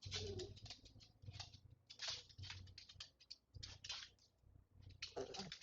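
A small dog, an elderly Bichon Frise, moving about excitedly: quick clusters of clicking and scratching, as of claws on a hard floor, with two short falling whimpers, one near the start and one near the end.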